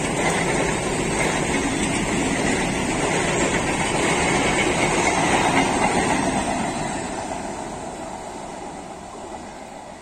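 Passenger train coaches rolling past on the rails, a steady rumble that fades over the last few seconds as the train moves away.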